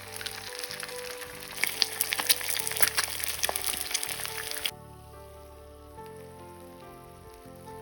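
Food frying in hot oil in a pan, sizzling with frequent sharp crackles, cutting off suddenly a little over halfway through; background music plays throughout.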